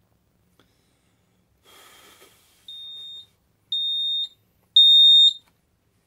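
Xiaomi Honeywell smoke detector going into alarm, set off by vapour: a piercing high beep about half a second long, repeating roughly once a second, three beeps each louder than the last. Before the first beep there is a short breathy hiss as the vapour is blown out.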